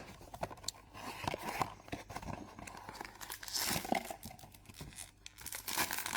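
Cardboard blind box being opened by hand: irregular tearing and crinkling of the packaging, with small clicks and scrapes.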